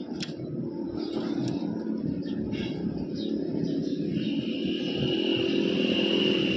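A vehicle engine running steadily and growing gradually louder, with a steady high whine joining about four seconds in.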